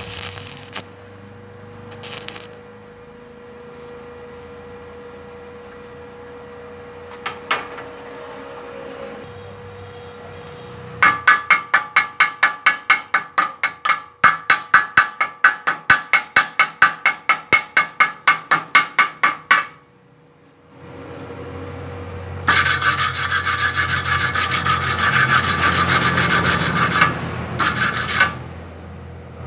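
Chipping hammer knocking slag off a fresh stick-weld bead on steel: rapid sharp metal taps, about four a second, for eight seconds or so. After a short pause comes a steady, harsh scrubbing over the weld for about five seconds as the bead is cleaned.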